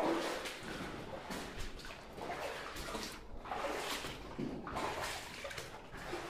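Person wading through water, sloshing with each stride in a steady rhythm of about one to two swishes a second.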